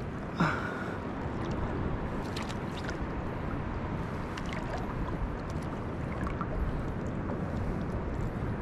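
Steady wash of sea water and wind noise, with one short louder sound about half a second in.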